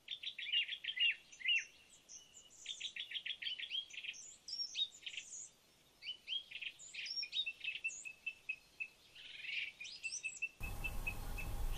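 Birds chirping and singing: quick runs of sharp chirps and trills, with gaps between phrases. Near the end a steady background hiss comes in under a bird repeating one short note rapidly.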